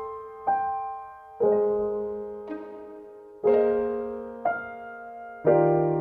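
Slow, gentle background piano music: single notes and chords struck about once a second, each ringing and fading before the next.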